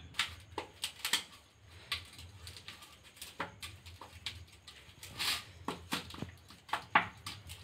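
Metal spoon clicking and scraping against a stainless steel bowl in irregular short knocks, with soft squishing, as boiled potatoes are mashed and mixed.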